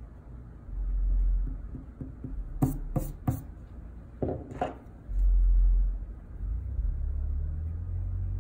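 A rubber eraser rubbing over pencil lines on drawing paper, the strokes coming through the tabletop as a low rumble, then a hand sweeping the paper, with a few sharp clicks about three seconds in.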